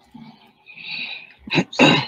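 A person's short vocal noises over a call line: a raspy stretch, then two loud bursts about a third of a second apart near the end.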